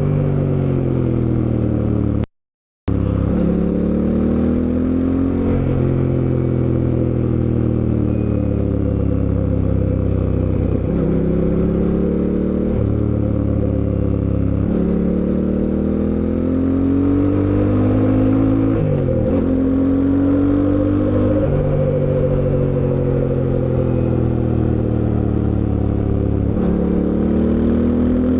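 Fantic Caballero 700 Scrambler's parallel-twin engine under way. Its pitch climbs and then drops sharply about half a dozen times as the bike accelerates and shifts up through the gears. The sound cuts out completely for about half a second, a little over two seconds in.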